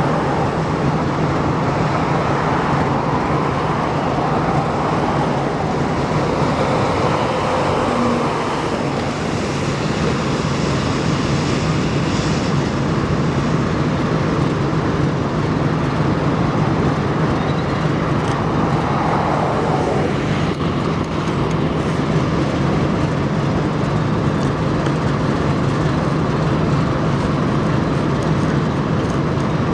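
Steady vehicle noise with a low, even engine hum underneath.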